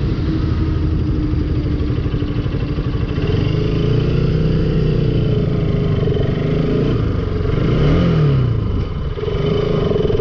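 Bajaj Pulsar RS200's single-cylinder engine running under way, its pitch rising and falling with the throttle through the middle of the stretch.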